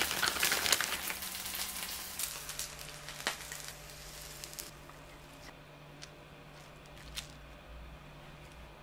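Food sizzling in a frying pan, a dense crackle that dies away over the first four or five seconds, followed by a few light clicks.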